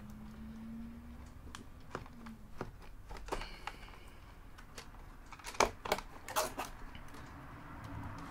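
Small clicks and knocks of hands handling cables, a connector and the metal video-card bracket inside an opened iMac, with a quick cluster of sharper clicks a little past the middle. A faint low hum lasts for about the first two seconds.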